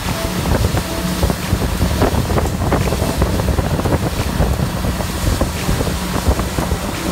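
Motorboat running at speed: a steady engine hum under heavy wind buffeting on the microphone and the rush of the wake.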